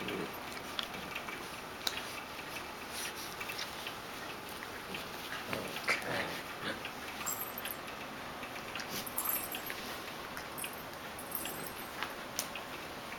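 Young puppies playing and wrestling together, with scuffling and scattered light clicks, and a few short puppy vocal sounds, the clearest about six seconds in.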